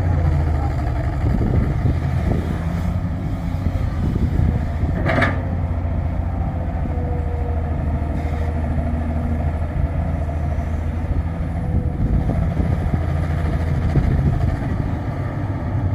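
Hydraulic excavator's diesel engine running steadily under load, a low drone, with a single metallic clank about five seconds in.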